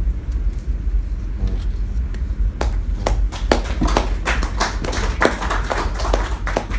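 Brief, light applause from a small audience: scattered handclaps start about two and a half seconds in and die away near the end, over a steady low hum.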